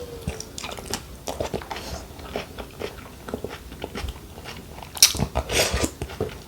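A person chewing and biting food close to the microphone: many small wet mouth clicks, with a louder cluster of mouth noises about five seconds in.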